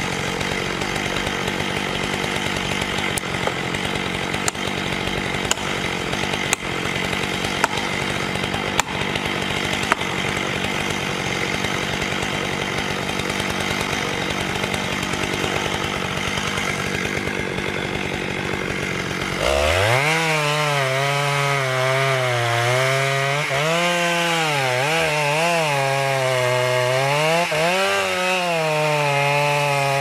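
Chainsaw cutting through a large tree trunk during felling. At first the engine runs at a steady pitch. About twenty seconds in it grows louder, and the pitch rises and falls repeatedly as the saw is worked through the wood under changing load.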